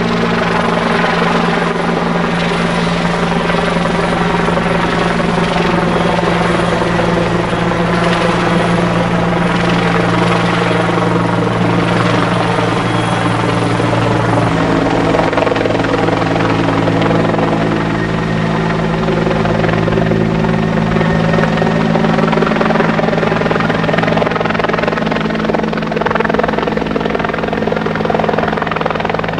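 Bell 412EP police helicopter flying low overhead, its four-bladed main rotor and engines running loud and steady. Its tones change pitch about halfway through as it passes directly over and starts to move away.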